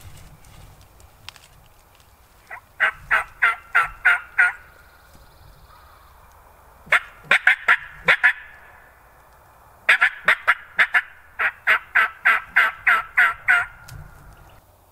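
Turkey yelping: three loud runs of evenly spaced calls, about four or five a second. The middle run is short and quicker, and the last is the longest.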